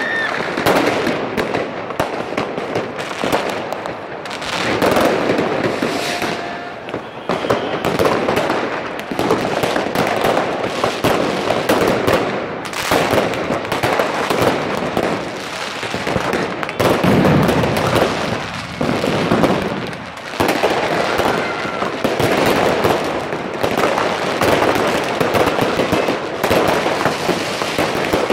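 Many fireworks and firecrackers going off at once: a continuous barrage of cracks and bangs with no break.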